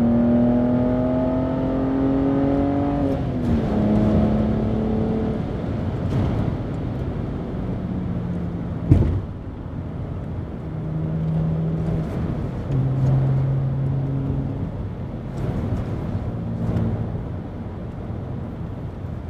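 BMW E90 330i's 3.0-litre N52 straight-six with a BMW Performance rear silencer, heard from inside the cabin: the engine rises in revs for about three seconds, drops at a gear change, then runs at steadier, shifting revs. A single sharp knock sounds about nine seconds in.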